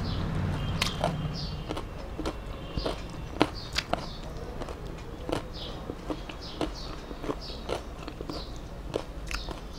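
Close-up eating by hand: fingers squishing and mixing rice on a steel plate, with chewing and lip-smacking that make many small, sharp clicks.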